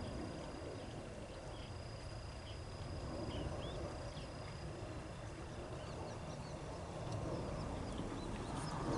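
Outdoor ambience: a steady low rumble of wind or running water that grows a little louder near the end, under a thin, steady high-pitched tone and scattered short chirps.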